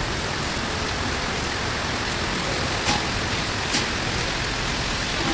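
Steady rain falling, an even hiss, with two sharp ticks about three seconds and three and a half seconds in.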